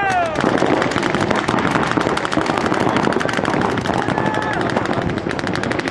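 Many paintball markers firing rapid strings of shots at once, a dense, continuous crackle of pops. A falling tone dies away in the first half second, and a short steady tone sounds about four seconds in.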